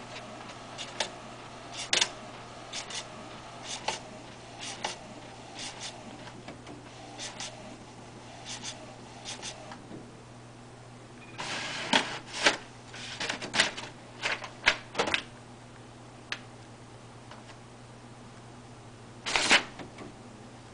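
Inkjet printer printing a page: irregular sharp clicks and clacks, thickest about twelve to fifteen seconds in, with a short rattle near the end.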